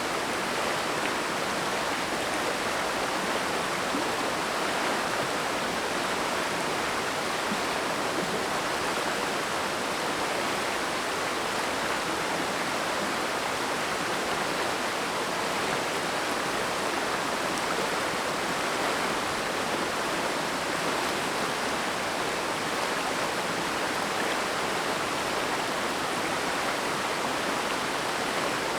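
Water of the Oirase mountain stream rushing, a steady, unbroken hiss with no changes.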